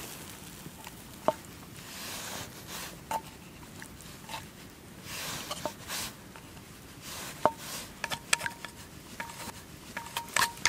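Scattered light clicks and clinks, some with a short ring, as stir-fried offal is scraped from a cast-iron skillet onto rice in a wooden bowl; the clinks come more often in the last few seconds.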